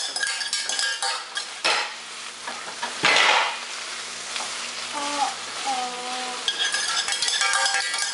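A utensil scraping and clinking around inside a stainless steel saucepan as it is stirred. The stirring is busy at first, with two louder scrapes, eases off in the middle, and picks up again near the end.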